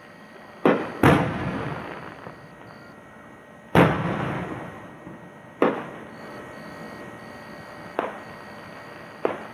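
Aerial fireworks shells bursting: six sharp booms, each trailing off in a rolling echo. The two loudest come about a second in and just under four seconds in.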